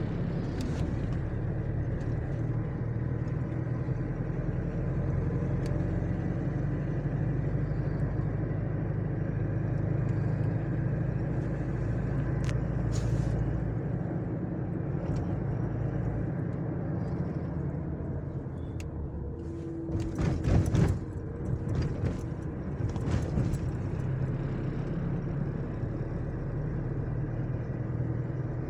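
A road vehicle driving steadily, its engine and road noise a continuous low rumble. About two-thirds of the way through come a few sharp knocks and rattles, the loudest moments of the stretch.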